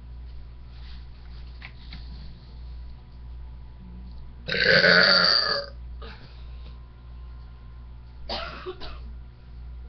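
A woman's long, loud belch about halfway through, followed near the end by a shorter vocal sound.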